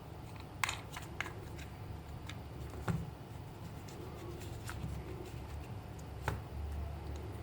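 Scattered light clicks and taps of small hard objects being handled, the sharpest a little over half a second in, about three seconds in and about six seconds in, over a low rumble.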